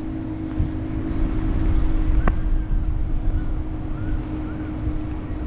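Wind buffeting the camera microphone during a paraglider tow launch, over a steady motor hum. A single sharp click comes a little over two seconds in.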